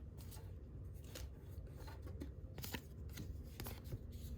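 Baseball cards and small items being moved around on a tabletop: soft handling noise with scattered light clicks and taps.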